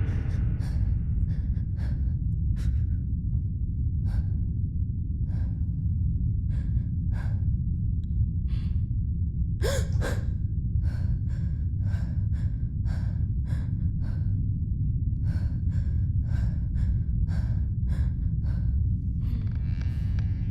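A person panting, short quick breaths about one or two a second, over a steady low rumble.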